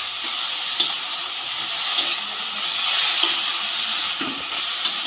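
Shredded cabbage and green chillies sizzling in oil in a metal kadai while being stir-fried with a spatula, with a sharp clack of the spatula against the pan about once a second.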